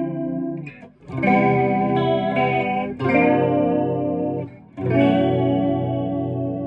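P90-equipped Les Paul-style electric guitar through a chorus pedal into a Marshall JCM900 amp. Chords are strummed and left to ring, with a new chord about one, three and five seconds in, each carrying the chorus effect.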